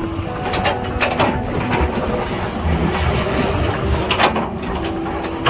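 Excavator's diesel engine running under load while it digs, with several sharp knocks and scrapes from the bucket working rock and dirt.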